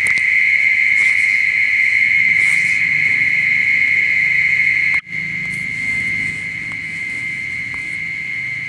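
Steady, high-pitched, unbroken insect chirring, which cuts out for an instant about five seconds in.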